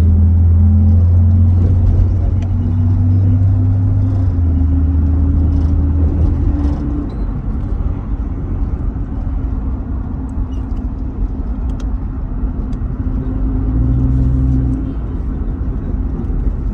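Van's engine and road noise heard from inside the cabin while driving, a steady low hum whose pitch rises gently as it gathers speed over the first several seconds, then settles to a quieter steady rumble, with a brief stronger hum near the end.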